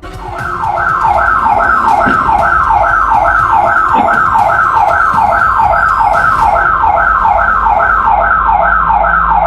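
Burglar alarm siren, just triggered, sounding loud: an electronic whoop of rapidly repeating falling sweeps, about two or three a second.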